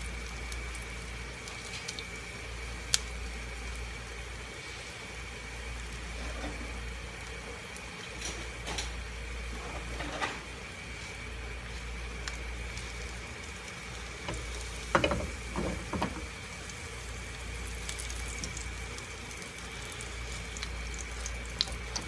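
Roti tikkis shallow-frying in oil in a nonstick pan, a steady soft sizzle. Now and then the spatula knocks against the pan, most clearly in a quick cluster about fifteen seconds in.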